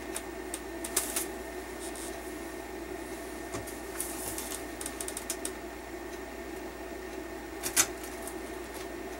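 Light clicks, taps and rustles of small machine screws and plastic parts being handled on a desk, scattered and irregular, the sharpest click near the end, over a steady low hum.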